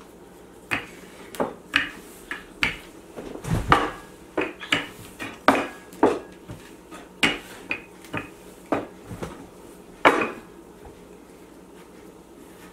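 Kitchen utensils knocking and clinking on a countertop: about twenty short, irregular knocks over some ten seconds, the loudest two near the middle and toward the end, then they stop.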